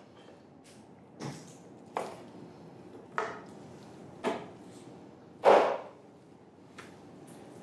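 Kitchen knife cutting through a whole roast chicken and striking a wooden cutting board: a series of sharp knocks roughly a second apart, the loudest about five and a half seconds in.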